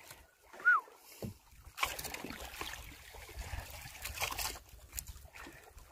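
Sea water lapping and splashing against the side of a small wooden boat, with wind on the microphone and a few light knocks. A brief falling squeak comes a little under a second in.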